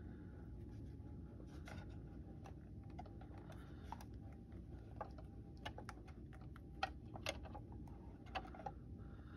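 Light, irregular clicks and taps of plastic model-kit parts being handled and fitted, with a few sharper clicks in the second half, over a faint steady low hum.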